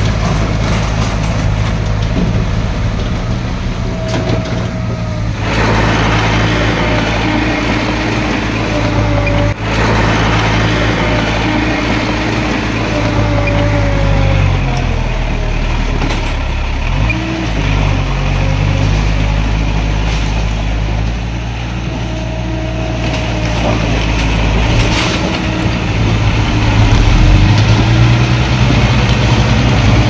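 Heavy earthmoving machine's diesel engine working under load. The engine note drops and wavers about halfway through, then climbs again near the end.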